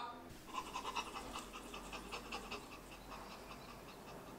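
A dog panting faintly in quick, even breaths.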